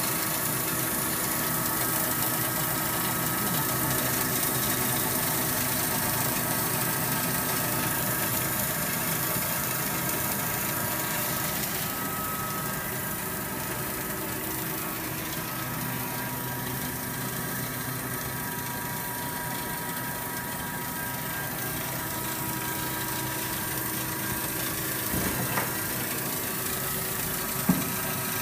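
A 1000 W fiber laser cutting machine running as it cuts 10 mm mild steel: a steady hiss mixed with several steady humming tones, with two short clicks near the end.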